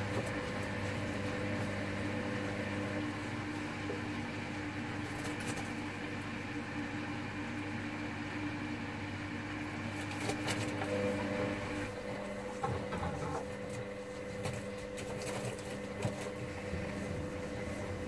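Hoover Dynamic Next front-loading washing machine on a wash cycle, its motor humming steadily as the drum turns the clothes. About eleven seconds in the motor's tone changes, followed by a few light knocks from the tumbling load.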